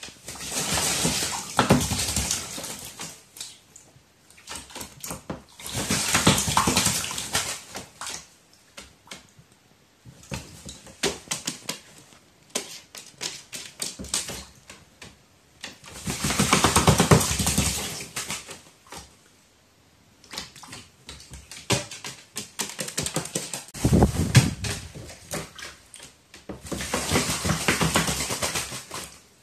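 Crow bathing in a shallow plastic tray of water: about five bouts of splashing, a second or two each, as it dips and flaps its wings in the water, with scattered clicks and taps between the bouts.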